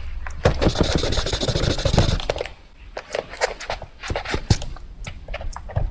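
Pencil sounds: about two seconds of fast, dense scratching or grinding, then a string of separate short pencil strokes or taps that run on to the end.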